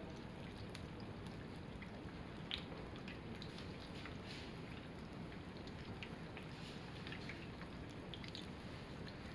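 Battered Anno sweet potato slices deep-frying in hot oil, at about 170 °C: a steady sizzle with many small crackles and pops scattered through it.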